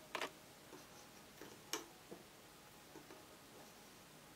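Rubber loom bands being stretched and snapped onto plastic loom pegs: a few faint, sharp clicks, the two clearest about a quarter of a second in and near the middle, with softer ticks between.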